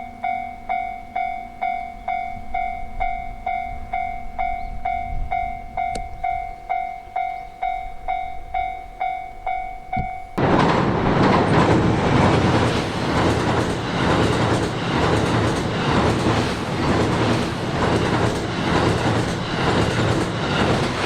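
Japanese railway level-crossing warning bell dinging about twice a second. About ten seconds in, a train passes over the crossing loudly with a rapid wheel clatter that covers the bell.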